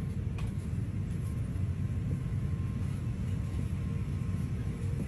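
Airliner cabin noise in flight: a steady low rumble of the engines and airflow, with a faint steady hum over it.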